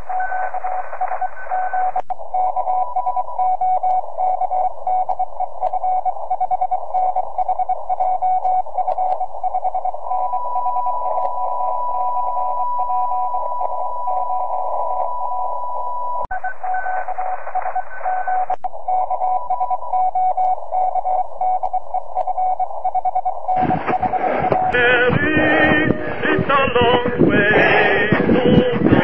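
Radio receiver hiss in a narrow band with Morse code tones in it, as heard from an amateur-radio receiver tuned for CW. About three-quarters of the way in, music takes over.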